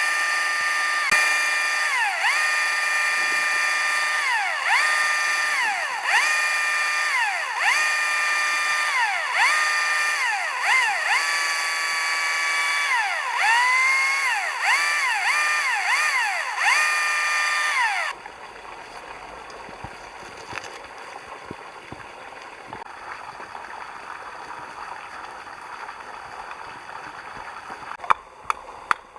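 Electric power drill running in repeated trigger pulls: a high motor whine that winds up, holds steady, then dips and winds up again about once a second, and cuts off suddenly after about eighteen seconds.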